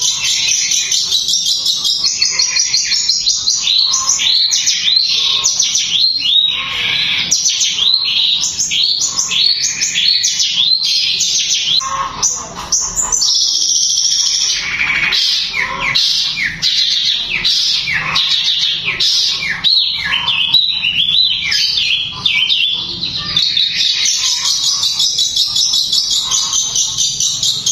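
Long-tailed shrike (cendet) singing loudly and without a break: a dense, high chatter broken by runs of quick, sharply falling notes, several a second.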